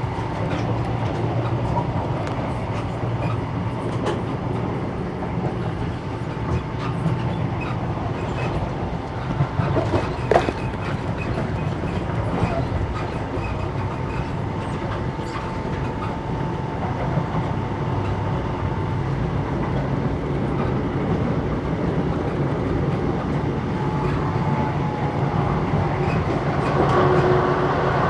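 Passenger train running along the line, heard from inside a carriage: a steady rumble of wheels on rail with a faint steady whine. There is a short cluster of sharp clicks about ten seconds in, and the running gets a little louder near the end.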